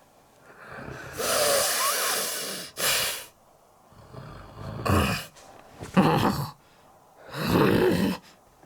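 Exaggerated comic snoring voiced for a puppet: a long breathy hiss and a short puff, then three low snores about a second apart.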